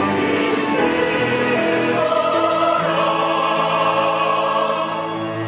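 Mixed church choir singing a Korean anthem in full harmony, moving through long held chords.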